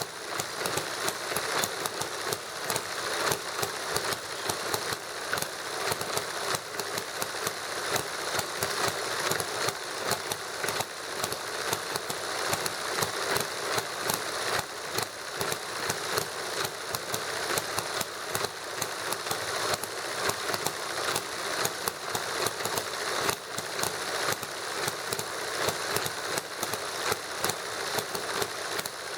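A small hit-and-miss model gasoline engine and a Stirling engine kit running together: fast, light, steady ticking and clattering with no deep rumble.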